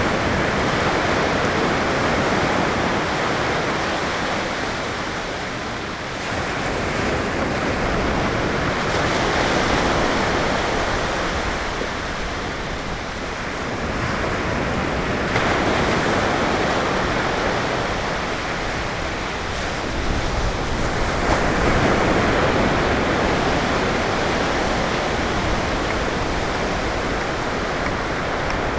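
Calm ocean waves breaking on a beach: a steady rush of surf that swells anew about every seven seconds.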